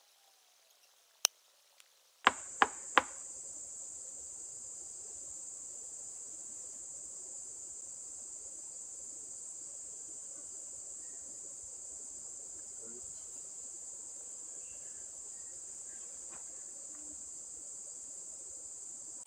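Three sharp knocks about two seconds in, followed at once by a steady, high-pitched insect chorus that starts abruptly and holds level.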